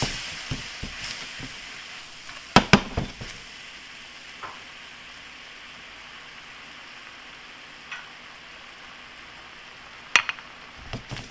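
Chicken stock sizzling and bubbling in a hot sauté pan of flour-dusted mushrooms, coming to a boil so the roux thickens it into a pan sauce. Sharp knocks twice about two and a half seconds in, and again near the end.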